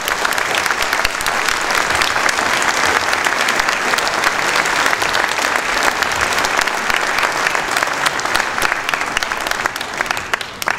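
Audience applauding: a steady, dense clapping of many hands that begins to die down near the end.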